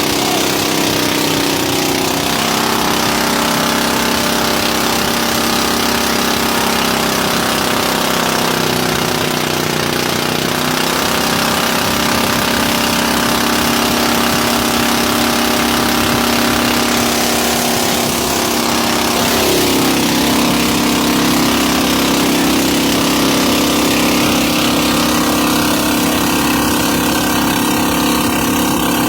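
A boat engine running steadily under way, its note shifting about two seconds in and again around twenty seconds in, over a steady rushing hiss.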